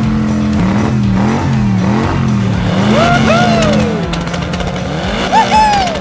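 Added car-engine sound effect, a low engine note whose pitch dips and recovers about twice a second, with squealing glides about three seconds in and again near the end, over background music.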